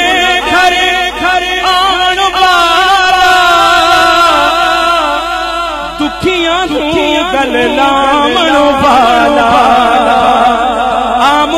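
A man sings a Punjabi naat solo into a microphone, holding long, wavering melismatic notes with a short break about halfway through.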